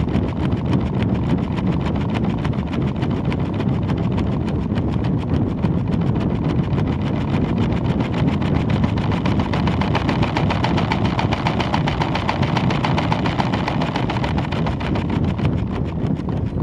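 Air rushing over the microphone of a weather-balloon payload camera in flight, with a fast, even rattling clatter from the payload running through it.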